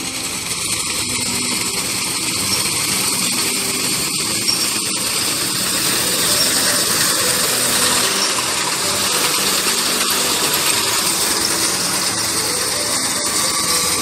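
Tractor engine running steadily while its front-mounted reaper cuts standing wheat.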